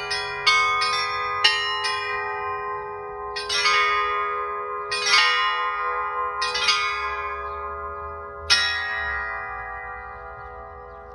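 Church bells of a seven-bell mobile belfry being rung: quick strokes on the small bells about twice a second for the first two seconds, then four louder strokes a second and a half to two seconds apart, the last about eight and a half seconds in, left ringing and slowly fading.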